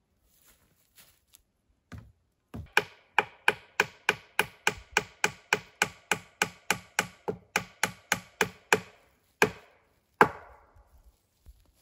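Wood being struck by a tool in a fast, even series of sharp knocks, about three a second, each with a short ring. Two last blows follow separately, the final one the hardest.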